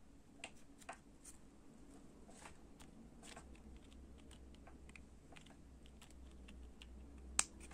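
Small plastic toy balls being handled and threaded onto a cord: scattered faint clicks and taps, with one sharper click near the end.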